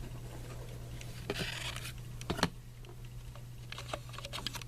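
Trading cards and pack wrappers being handled: a brief rustle about a second and a half in, a couple of sharp clicks soon after, and light ticks near the end, over a steady low hum.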